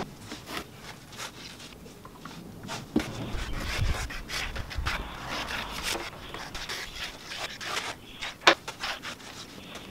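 A sponge being wiped and rubbed over a wooden workbench top to spread a liquid finish, with irregular scrubbing strokes, knocks and a few sharp clicks, one of them louder near the end.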